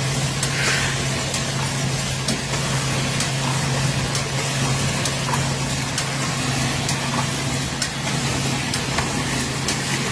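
Tube filling and cartoning machine running: a steady hum under constant mechanical noise, with repeated sharp clicks about once or twice a second and a few short hisses.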